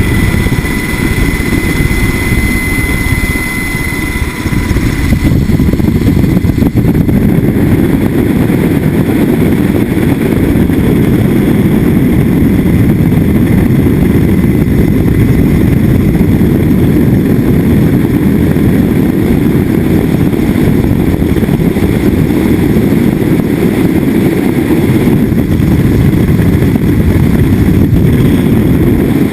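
Sikorsky H-60 helicopter running: a loud, steady heavy rumble of rotor and turbine noise. A thin high whine sits over it for the first few seconds and stops about five seconds in.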